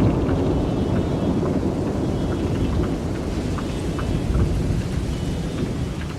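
Rolling thunder rumbling over steady rain. The rumble is loudest at the start and slowly fades, with the patter of raindrops running beneath it.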